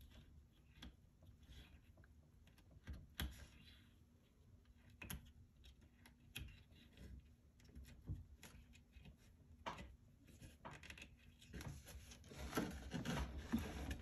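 Faint, scattered light clicks and taps of twine being looped around small nails in a wooden panel. Near the end comes a louder stretch of scraping and rubbing as the wooden panel is turned on the table.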